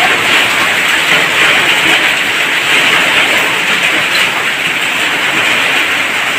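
Heavy downpour of rain mixed with hailstones pelting a road: a loud, dense, steady hiss.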